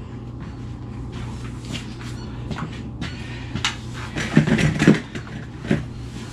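Clunks and knocks of a plastic-cased on-demand water heater being handled and lifted off a plastic stool, loudest about two-thirds of the way through. A steady low hum runs underneath.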